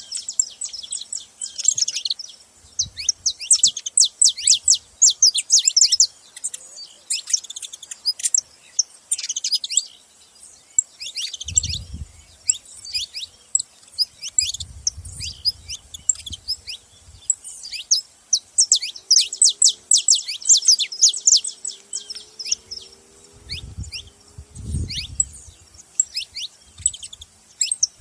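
Several saffron finches calling together: bursts of quick, sharp, downward-sweeping chirps that come and go in clusters.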